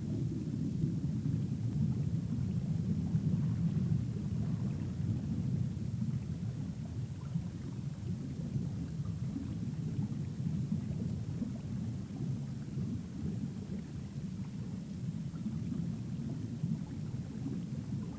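Low, dull rumbling underwater ambience: a steady, slightly churning noise of moving water with no distinct events.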